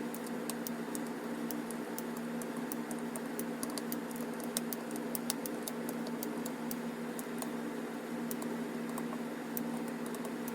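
Rapid, irregular clicking of a ratchet and click-type torque wrench going round the bolts, checking each is at torque, over a steady low hum.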